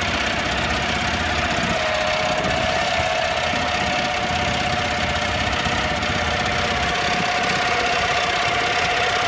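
Boat engine running steadily, with a steady droning tone over it.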